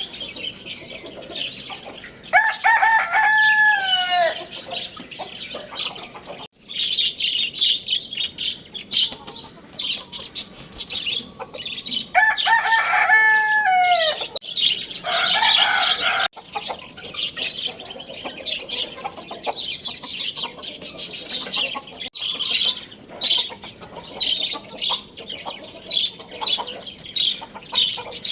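Rooster crowing twice, each crow about two seconds long and dropping in pitch at the end, over constant high chirping of other birds.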